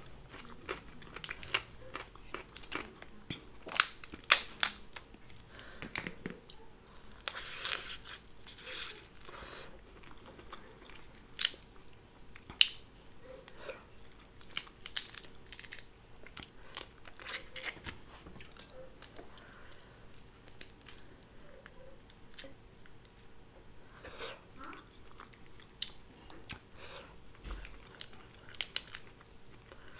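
Close-miked eating sounds: chewing crab meat, and cracking and pulling apart Dungeness crab leg shells by hand, with many sharp crackles and clicks, loudest a few seconds in.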